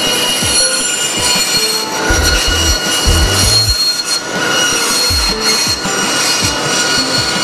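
Bandsaw running and cutting through a red cedar board, a steady sound with several high-pitched tones held throughout.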